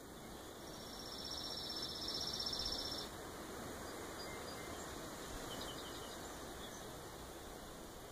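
A high, rapidly pulsed trill from a small animal lasts about two and a half seconds, starting about half a second in. A few faint short chirps follow later, over a steady low hiss.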